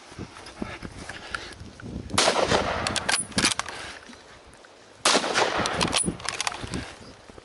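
Hunting rifle fired twice, about three seconds apart: each shot a sudden loud blast that hangs on for a second or more.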